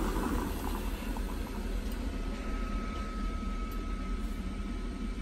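Jetboil stove shut off after boiling water, the just-boiled water in its cup bubbling down, over a steady low hum.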